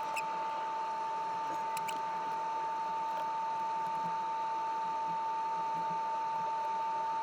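A steady high-pitched whine at one pitch, with a few faint light clicks of small parts being handled.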